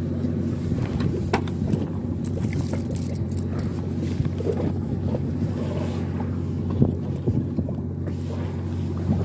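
Fishing boat's engine running steadily with a low, even hum, with a few short knocks and clicks on top, the sharpest about seven seconds in.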